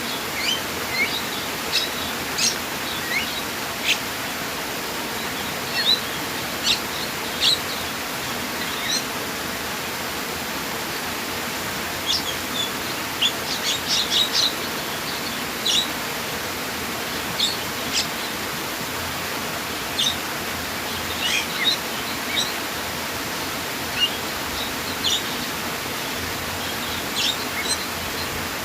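Steady rush of flowing water with songbirds giving short, high chirps scattered throughout, fewer for a few seconds in the middle.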